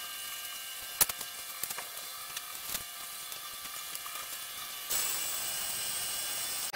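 Hand tap turned by a tap wrench, cutting a thread into steel plate: a few light clicks and ticks over a steady hiss that gets louder about five seconds in.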